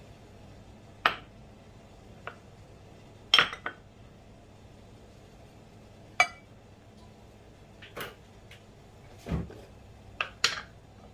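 Glass bowls and a stainless steel cup being set down on a granite countertop: a series of separate clinks and knocks, about ten in all, with a duller thump about nine seconds in.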